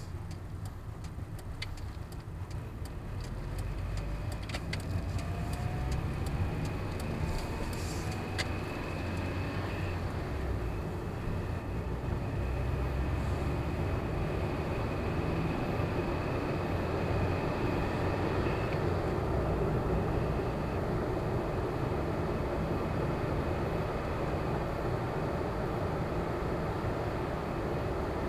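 Car engine and tyre noise heard from inside the cabin as the car accelerates out of a roundabout. The engine note climbs over the first several seconds, then settles into a steady cruise. A run of sharp ticks sounds during the first eight seconds.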